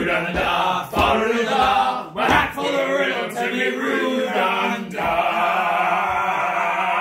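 Several men singing together, finishing the song's chorus and holding a long final note from about five seconds in.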